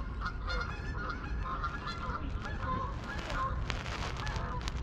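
A group of geese honking, many short calls overlapping one another without pause.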